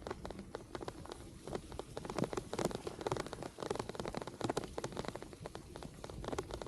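Rain falling, heard as a dense, irregular patter of sharp drop ticks.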